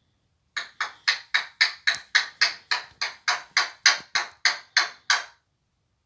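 African grey parrot making a rapid run of about seventeen short, harsh, raspy calls, about four a second, that stop abruptly a little after five seconds.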